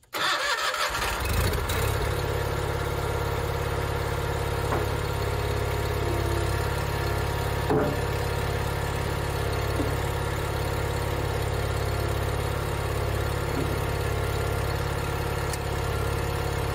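Garden tractor engine running steadily at idle while its hydraulic front loader moves the bucket. There is a light clunk about eight seconds in, as the bucket shifts on the loader.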